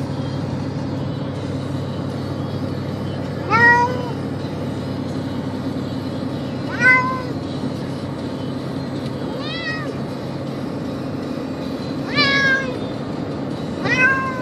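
Tortoiseshell cat meowing five times, a few seconds apart, each meow rising then falling in pitch, over the steady engine and road hum inside a car.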